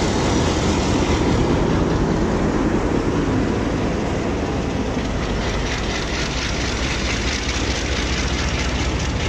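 Pakistan Railways PHA-20 diesel locomotive 8315 pulling away slowly with its engine running, followed by its passenger coaches rolling past at low speed. From about halfway through, the coach wheels give a steady clicking over the rail joints.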